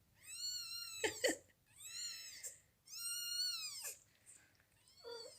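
A young kitten mewing: three long, high-pitched cries about a second apart, each rising and then falling in pitch.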